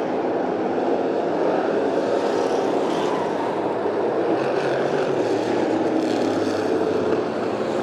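Hobby stock race cars' engines running at speed around a dirt oval: a loud, steady blended engine noise from the pack.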